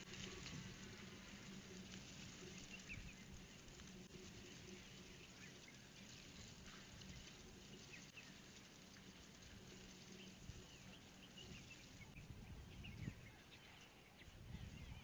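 Near silence: faint outdoor ambience with scattered short, high bird chirps.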